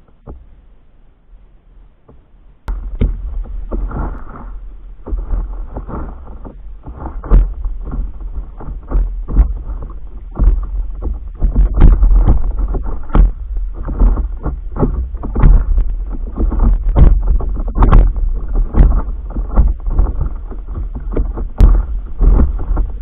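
Paddle strokes and water splashing and slapping against a stand-up paddleboard under way, over a low rumble of wind on the microphone. It starts suddenly about three seconds in, after a quieter stretch.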